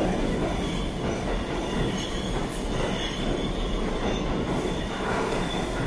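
An R211T subway train rolling slowly through a station, with a steady rumble of steel wheels on rail.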